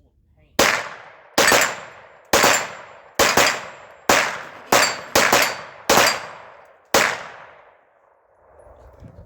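A handgun fired in a slow string of about ten shots, roughly one a second, each shot followed by a trailing echo. The string stops about seven seconds in.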